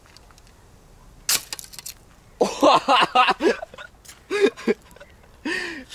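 Speargun shot at close range: the spear strikes an iPhone 7 taped to a tree trunk with one sharp crack about a second in, a few small ticks after it. A man's voice exclaims in short bursts afterwards.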